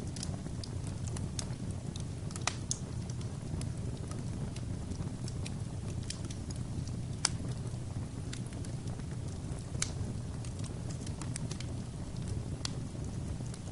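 Fire burning in a fireplace: a steady low rumble with scattered sharp crackles and pops, the loudest about seven seconds in.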